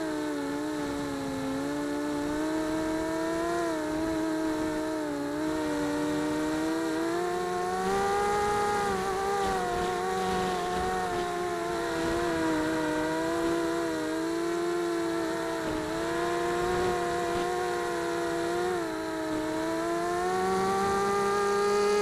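Mini quadcopter's four 3100kv brushless motors and 5x3 two-blade propellers whining in flight, heard from a camera mounted on the frame. The pitch rises and falls with throttle, dipping briefly a few times and climbing near the end.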